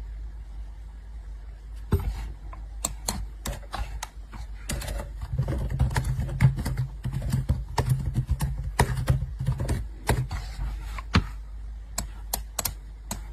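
Fingers typing on a laptop keyboard: a run of irregular, quick key clicks, busiest in the middle, over a low steady hum.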